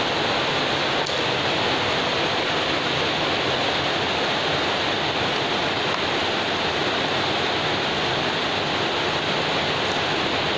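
Steady, even hiss that does not change.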